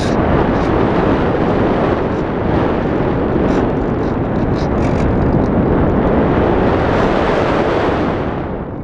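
Rushing airflow over a model glider's onboard camera during a fast, banking low pass, a steady loud roar of wind with small gusts, thinning and quieting just before the end.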